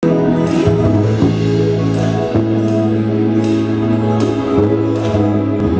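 A live band playing at a sound check: long held bass notes that change every second or so, with a struck percussion hit every one to two seconds.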